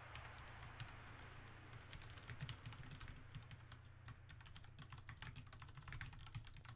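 Faint typing on a computer keyboard: irregular keystrokes coming in quick runs.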